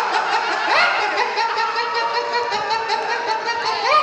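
A man's voice imitating a chicken: short rising calls give way to longer held notes at stepped pitches, with another sharp rising call near the end.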